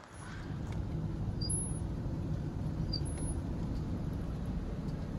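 Steady low rumble of a vehicle running, heard from inside its cab. Two brief high chirps come about one and a half and three seconds in.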